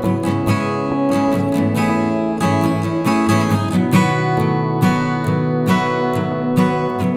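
Acoustic guitar music with steady strumming.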